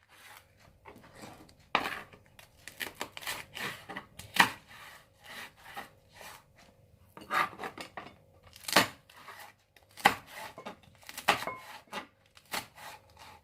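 Kitchen knife slicing vegetables on a cutting board: irregular taps of the blade on the board, with a few louder knocks.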